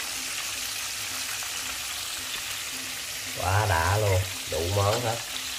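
Food sizzling in hot oil in a pan: a steady frying hiss.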